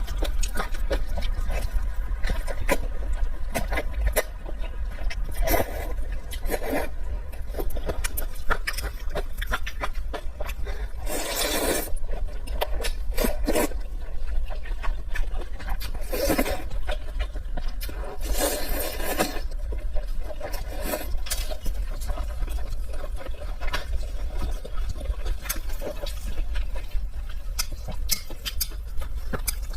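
Close-miked eating sounds: steady wet chewing clicks, with a few longer, louder bursts in the middle stretch. A steady low hum runs underneath.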